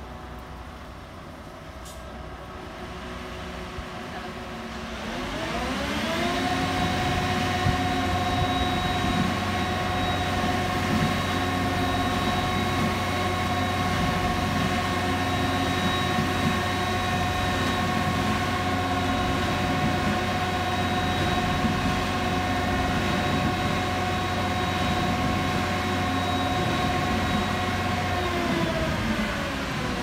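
Concrete mixer truck's diesel engine revving up about five seconds in, holding a steady high speed with a high whine above the engine note, then dropping back near the end; the raised engine speed drives the drum to discharge concrete down the chute.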